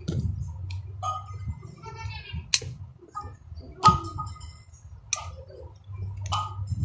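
Cutter pliers working on a charging cord's wires, giving a few sharp metallic clicks roughly a second and a bit apart, over a steady low hum.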